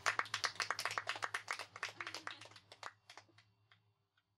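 A small group of people clapping by hand, the applause thinning out and dying away to a few last scattered claps about three to four seconds in.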